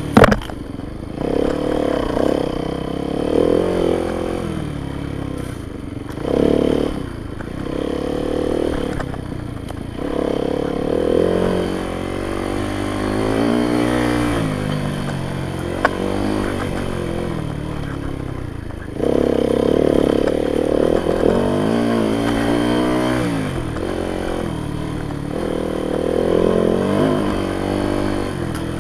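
Yamaha YZ dirt bike engine being ridden, its pitch climbing and dropping again and again with the throttle. There is a sharp knock right at the start and a smaller click about halfway through.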